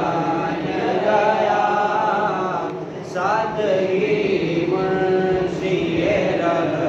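A man's solo voice chanting a melodic recitation in long, held, wavering notes, with a short pause about three seconds in.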